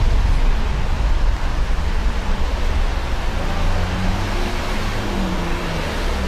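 Airbus A330 jet airliner's engines at take-off power, a steady low rumble that slowly eases, mixed with the hiss of cars on a wet road.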